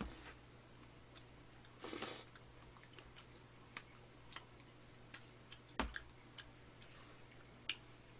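Quiet eating sounds from biting and chewing strawberry omelettes of soft sponge, whipped cream and fresh strawberry: scattered small wet clicks and smacks, a brief rustle about two seconds in, and a soft knock near six seconds, over a faint steady low hum.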